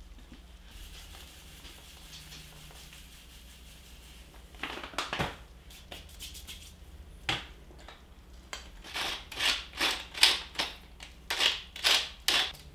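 Wooden pepper mill grinding pepper over a pot: a run of about nine rasping twists, roughly two a second, in the last few seconds, after two short scraping sounds a few seconds earlier.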